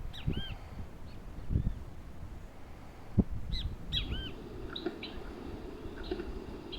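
Birds calling: short arched, up-and-down notes, scattered singly and in a quick cluster about three and a half to four seconds in, over a low rumble. A single sharp click about three seconds in.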